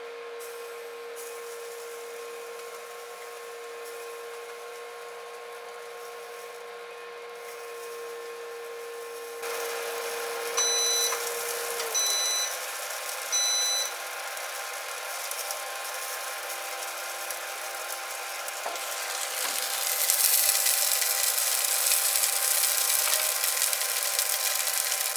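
COMFEE FLASHWAVE air fryer toaster oven with its convection fan running steadily. About halfway through it gives three beeps roughly a second and a half apart to signal the end of the cook cycle, and the fan winds down. Near the end, the hot pizza rolls sizzle loudly on the tray.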